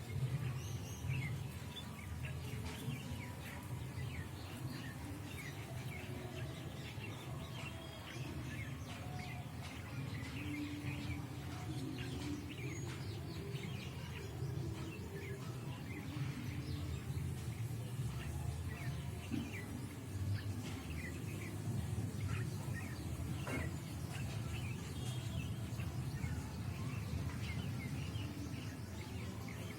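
Many birds chirping and calling in short, overlapping notes throughout, over a steady low rumble of background noise.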